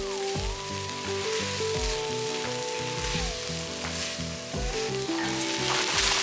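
Onions and garlic sizzling as they sauté in a pan, under background music with sustained notes and a regular beat.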